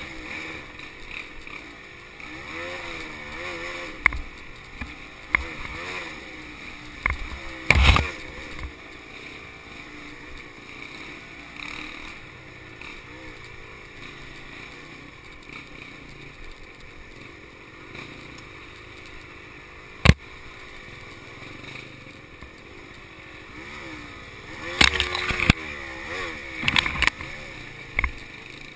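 Honda CRM250's single-cylinder two-stroke engine running as the dirt bike rides a rough trail, its pitch rising and falling with the throttle. Several sharp knocks break in, the loudest about a quarter of the way in and two-thirds of the way in, with a cluster near the end.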